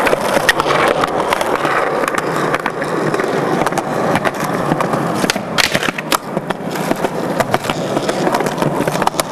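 Skateboard wheels rolling over rough pavement with a steady rumble. Sharp cracks and clacks of the board's tail popping and landing come through it, loudest about five and a half seconds in.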